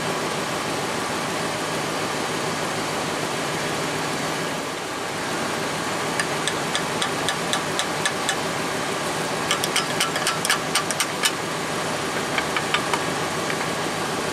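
Sharp metallic clicks and taps of a screwdriver prying at rusted brake pads seized in a brake caliper bracket, starting about six seconds in and coming thickest for a couple of seconds near the middle, over a steady engine-like drone.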